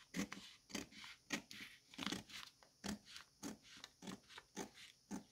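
Scissors cutting into a paper sewing pattern along a dart line: a steady run of short, faint snips, about three a second.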